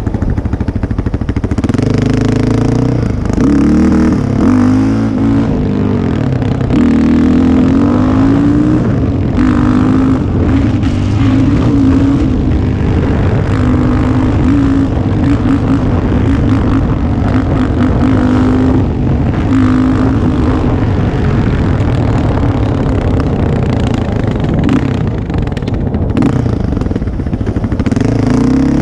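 Yamaha Raptor 660 ATV's single-cylinder four-stroke engine through aftermarket Yoshimura pipes, pulling hard from a stop. Its pitch climbs and drops several times through the first few seconds as it accelerates and shifts, then holds steadier at speed before changing again near the end.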